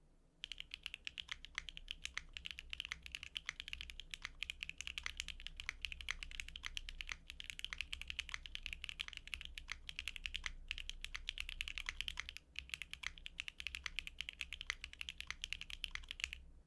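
Neo65 mechanical keyboard with an FR4 plate and Akko V3 Cream Yellow Pro linear switches, typed on quickly and continuously in a dense run of keystroke clacks. There is a short pause about twelve seconds in, and the typing stops just before the end.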